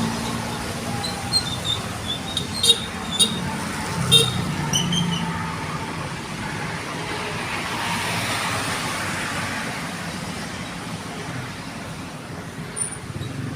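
Road traffic on a busy highway: a steady rumble of engines and tyres, with one vehicle passing louder about eight seconds in. A few short high chirps and ticks sound between about two and five seconds in.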